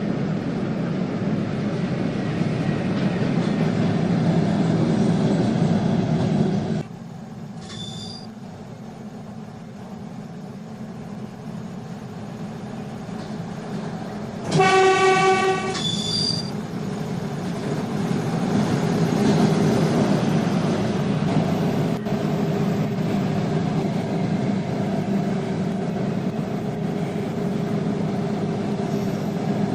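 Trains at a railway station: the loud rumble and rattle of a train running past, which cuts to a quieter stretch with a short high whistle. About halfway through comes one train horn blast lasting about a second, then a brief high whistle, and another train rumbles past with a steady whine.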